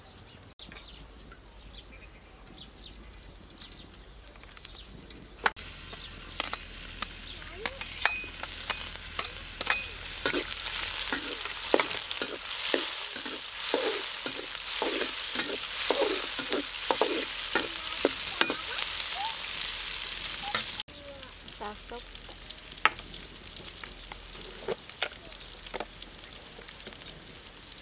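Chopped garlic sizzling in hot oil in a steel wok, with a metal ladle scraping and tapping against the pan as it is stirred. The sizzle builds up through the middle and drops suddenly about 21 seconds in.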